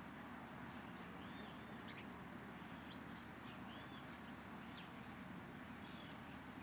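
Small birds chirping faintly: a scatter of short, high arched notes and quick downward sweeps, over a steady low background rumble.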